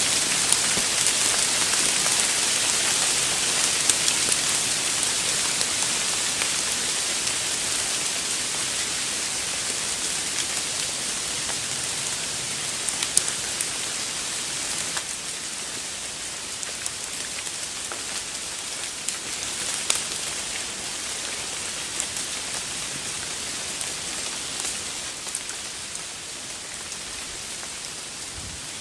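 Leaves and acorns pouring down through the trees onto the leaf-covered forest floor, shaken loose by a light breeze. It is a dense, rain-like patter with scattered sharp ticks, slowly dying away.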